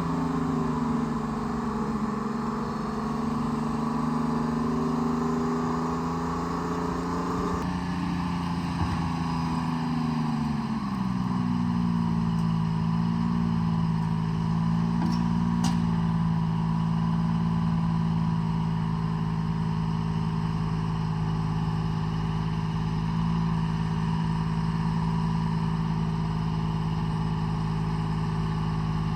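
Diesel engine of a Tree Farmer log forwarder running steadily, its revs easing down about ten seconds in and then holding at a lower, even speed.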